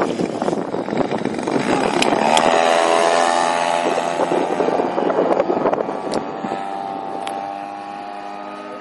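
Model aerobatic plane's motor and propeller running, with wind buffeting the microphone at first. A little over two seconds in, the pitch drops slightly and settles into a steady buzz that slowly fades.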